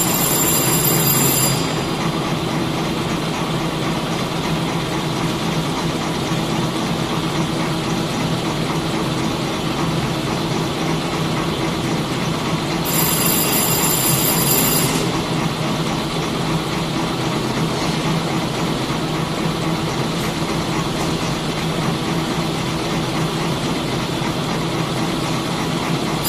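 Single-straw packaging machine with printing running steadily: a rapid, even mechanical clatter over a low hum. A high-pitched ringing tone comes in briefly at the start and again for about two seconds halfway through.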